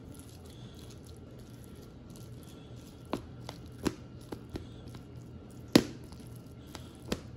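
Metal fork mashing salmon into rice on a plate, its tines clicking against the plate about half a dozen times in the second half, one clink much louder than the rest, over a low steady hum.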